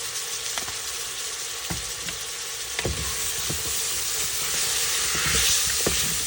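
Chopped garlic, onion, thyme and bell pepper sizzling as they fry in a pot, with a few sharp knocks of the stirring utensil against the pot. The sizzle grows louder about five seconds in.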